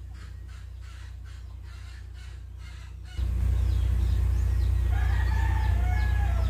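A rooster crowing for about a second and a half near the end. Under it is a steady low hum that suddenly gets much louder about three seconds in.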